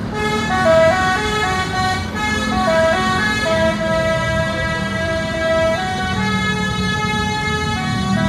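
Bus telolet horn, a multi-tone air horn, playing a melody of short and held notes that change pitch in steps.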